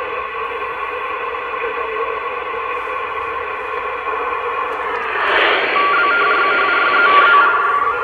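A CRT SS 7900 CB radio receiving on upper sideband at 27.555 MHz: a steady band hiss with faint whistles in it. About five seconds in, the hiss swells and a steady heterodyne whistle comes in, with a second, broken tone just above it.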